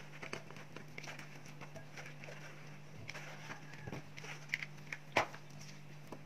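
Soft, irregular taps and light slaps as half-boiled potato wedges are dropped into a bowl of wet spiced batter, the loudest tap about five seconds in, over a low steady hum.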